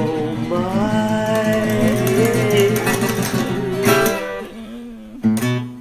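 A simple children's song: one voice sings a long drawn-out 'oh my' over strummed acoustic guitar. The voice ends about four seconds in, and the guitar strums a few more chords alone.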